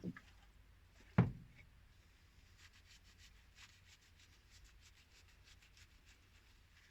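A knock at the start and a louder sharp knock about a second in, then faint quick rubbing strokes of a pipe end being scrubbed clean for the repair.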